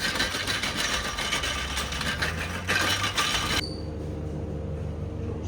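Car driving noise: a loud, even rush with many small rattles and clicks, which cuts off abruptly about three and a half seconds in, leaving a steady low hum.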